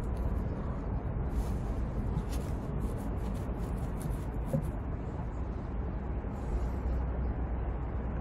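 A steady low rumble, with faint light splashes of used gear oil trickling from a hose into a plastic jug from about one to five seconds in.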